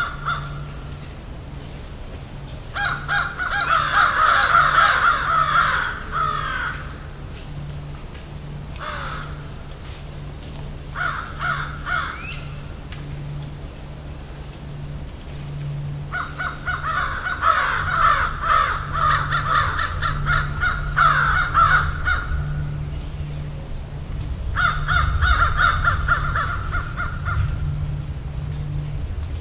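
Crows cawing in several bouts of quick, harsh caws, with short lulls between bouts, over a low steady hum and a constant high hiss.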